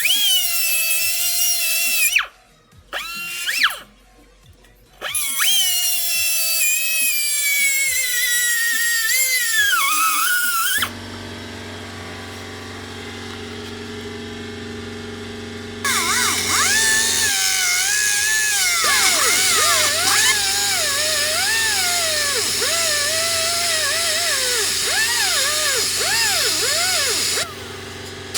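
Electronic background music with high, swooping synth lines. It drops to a quieter passage of steady low tones about 11 seconds in, and the swooping lead returns around 16 seconds.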